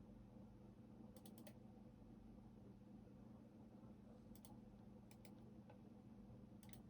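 Faint keystrokes on a computer keyboard, in four short bursts of two to four keys spread over several seconds, over a low steady hum.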